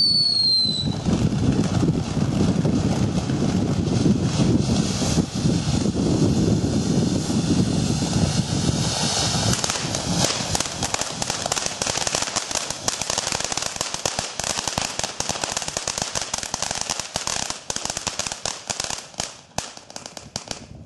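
Ground fountain firework (Vulkan) spraying sparks with a steady rushing hiss, which turns into dense crackling about halfway through and thins out near the end. A whistle falls in pitch during the first second.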